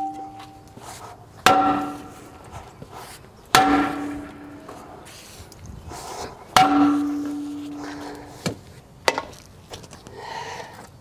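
Sledgehammer striking a semi truck's cast-iron brake drum three times, each blow ringing out with a metallic tone as the drum is knocked loose from the hub. Two lighter knocks follow near the end.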